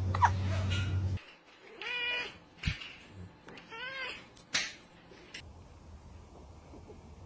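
A cat with hiccups: a short sharp squeak of a hiccup right at the start, then two short meows about two seconds apart, with a few small clicks between. A steady low hum in the background stops about a second in.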